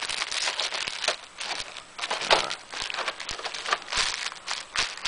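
Clear plastic bag of silk scarves crinkling and crackling as it is handled and pressed into a plastic box tray, an irregular run of crackles with a few sharper ones.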